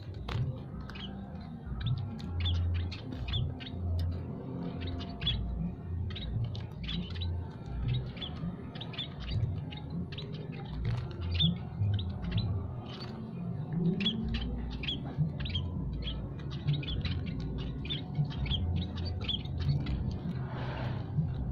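Munias, scaly-breasted and Javan, chirping continuously in a flock of short, high calls coming several a second, over a low background rumble.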